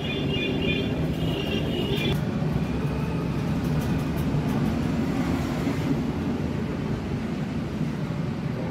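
A steady low mechanical rumble, with a thin high squeal over the first two seconds.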